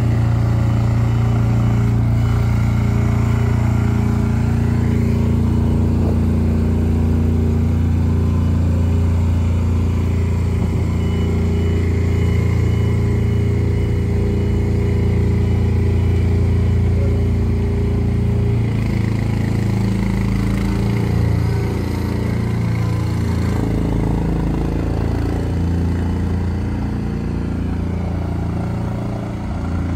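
An engine running steadily with a low drone, its texture shifting slightly about two-thirds of the way through.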